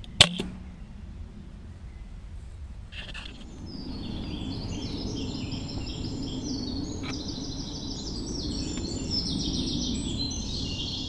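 A single sharp shot from a Walther Rotex RM8 .22 air rifle just after the start. Then a songbird sings fast, repeated high phrases through most of the rest.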